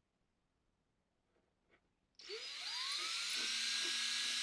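Dead silence, then about two seconds in a handheld power tool motor starts and spins up with a rising whine that levels off into a steady high-pitched run.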